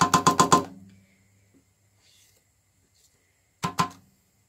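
A quick run of about eight sharp taps at the start, with two more near the end: a kitchen utensil knocked against the mixer bowl to shake off stiff whipped egg whites.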